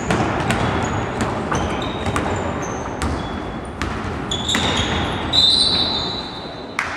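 Basketball game play in a hall: the ball bouncing on the court in a string of sharp knocks, with short, high shoe squeaks. A longer, louder squeak comes from a bit past the middle until near the end.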